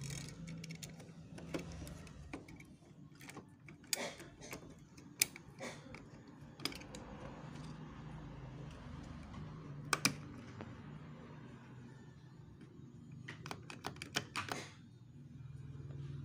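Irregular clicks and taps of plastic and metal parts being handled inside an opened Brother MFC-J3530DW inkjet printer, over a faint steady low hum.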